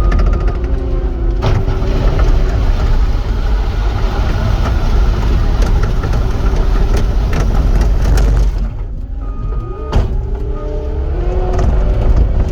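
Cat 259 skid steer's diesel engine running and working, with a pitched whine that shifts up and down. The machine goes quieter for a moment about nine seconds in, and a sharp knock follows about a second later.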